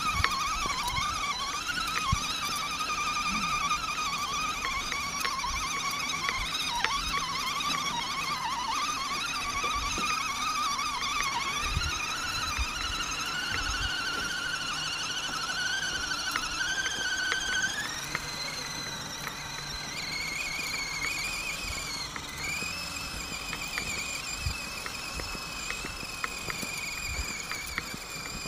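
Multirotor camera drone's motors and propellers whining steadily, the pitch wavering with the throttle and stepping higher about two-thirds of the way through.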